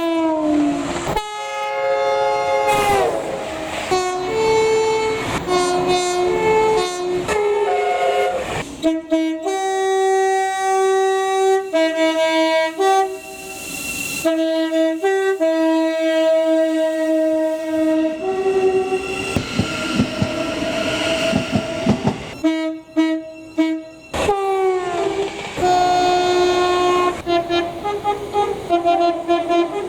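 Two-tone train horns sounding long runs of quick tones, switching back and forth between a high and a low note, in several clips cut one after another. About two-thirds of the way through the horns give way briefly to the noise of a passing train.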